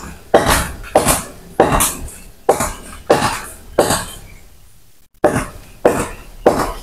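Repeated hand cutting strokes into a durian tree branch: six sharp strokes at an even pace of about one and a half a second, each fading quickly, then a pause of a second or so and three more strokes.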